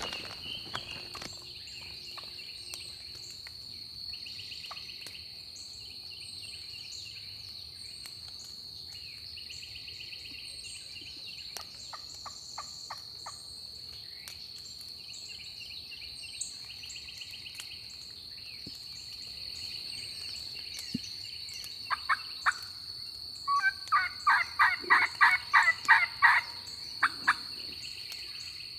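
Turkey yelping: a loud series of about a dozen evenly spaced yelps, about four a second, near the end, after a few single notes. Under it runs a steady high insect drone.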